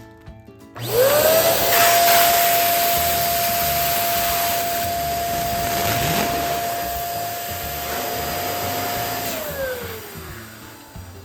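Electric balloon inflator pump starting about a second in, its motor spinning up to a steady whine over the rush of air, running for about eight seconds while it fills a balloon, then winding down near the end.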